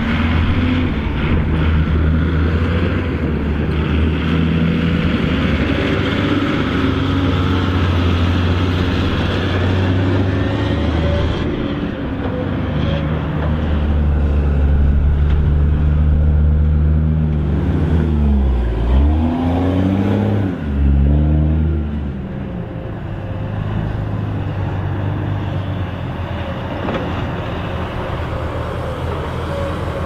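Heavy diesel engines of Hydrema 922C articulated dump trucks and a Komatsu crawler excavator running steadily under load. About two-thirds of the way through, the engine speed drops sharply and climbs back twice.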